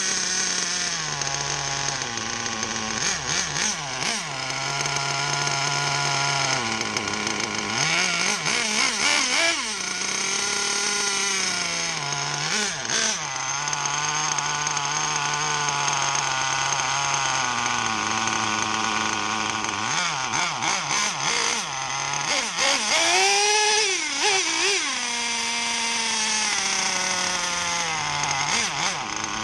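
HYPER 28 nitro RC engine idling with a few short revs that rise and fall, as its three-needle carburettor is tuned with a screwdriver.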